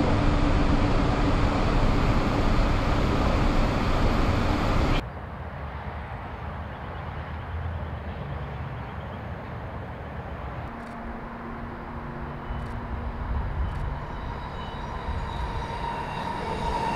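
Sydney Metro driverless train (Alstom Metropolis) running along an elevated track, heard loud from on board. About five seconds in the sound cuts to a quieter metro train passing on the viaduct, growing louder near the end as a steady whine comes in.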